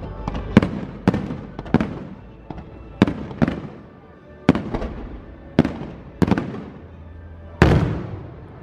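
Aerial fireworks shells bursting in a string of about ten sharp bangs at uneven intervals. Each bang trails off in a rolling echo, and a heavier, longer burst comes near the end.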